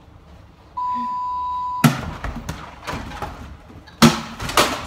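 An electronic arcade basketball game gives a steady beep about a second long, then thrown objects bang against its backboards and rims: a loud bang right after the beep, several lighter knocks, and another loud bang near the end.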